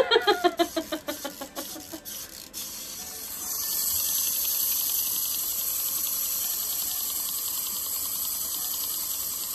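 Clockwork wind-up hamster toy: a quick run of pitched pulses falling in pitch, with clicks, in the first two seconds, then the spring motor running with a steady fine whirring tick for the rest of the time.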